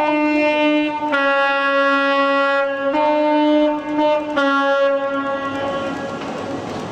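Two-tone horn of an InterCity 125 (HST) power car sounded in alternating high and low notes, four notes in all, the last one fading out near the end.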